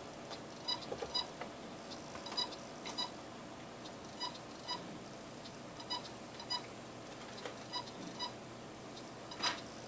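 Desktop computer giving short, high beeps, mostly in pairs, that repeat about every two seconds over a steady fan hum. A sharp click comes near the end.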